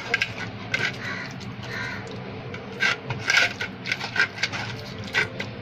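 Crows cawing repeatedly in short, harsh calls, over the wet squelch of a hand kneading raw prawns into a thick masala marinade on a steel plate.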